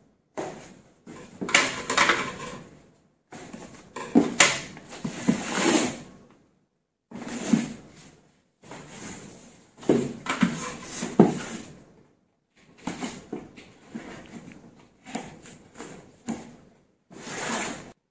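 Scissors cutting plastic packing straps and slitting the tape on a cardboard box, with the box scraped and shifted between cuts. The sounds come in irregular bursts, broken by a few abrupt dead-silent gaps.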